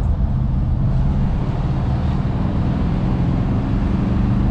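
Air-cooled Volkswagen bus's flat-four engine running steadily on the move, heard from inside the cabin as a low, even drone with road noise.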